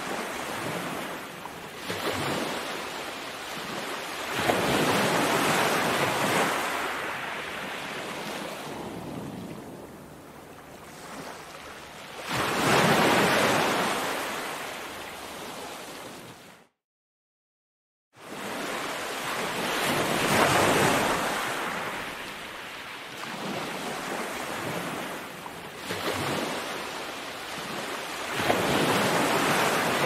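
Ocean surf: small waves breaking and washing up on a sandy beach, the wash swelling and fading every several seconds. The sound cuts out completely for about a second and a half midway, then resumes.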